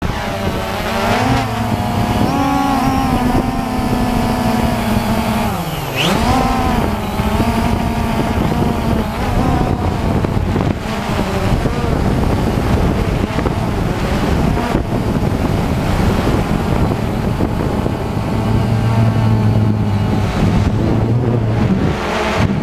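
Quadcopter drone's electric motors and propellers whining loudly, heard through the camera on the drone itself. The pitch wavers up and down, drops sharply about six seconds in and climbs straight back up.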